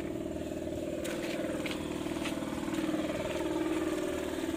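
Truck diesel engine idling steadily, with a few faint clicks over it.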